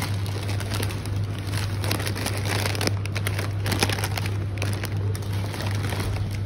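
Crinkling of plastic snack bags being handled, over a steady low hum.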